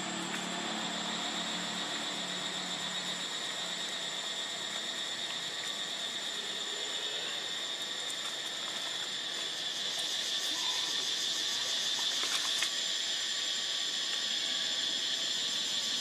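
Steady, high-pitched insect chorus droning without a break, with a faint low hum in the first few seconds.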